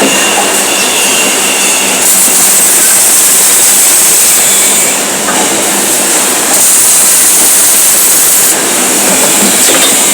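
Electric arc welding: a loud, steady hissing crackle from the arc, shifting abruptly in tone a few times.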